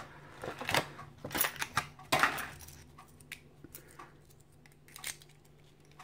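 A small padlock being handled: scattered clicks and light rattles of metal and plastic, with one louder scraping rustle about two seconds in, then a few faint clicks.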